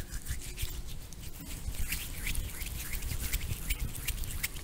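Cream-covered hands rubbing and squishing close to the microphone in a face-massage role-play, an irregular run of small wet clicks and crackles.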